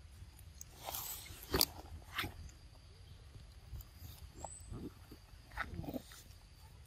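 Macaques eating mango and moving about on rocks: scattered soft rustles, smacks and clicks, the sharpest about a second and a half in, with a brief high chirp about four and a half seconds in.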